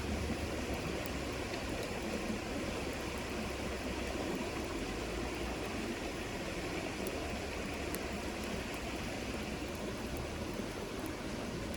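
River water flowing in a steady rush, with a few faint clicks.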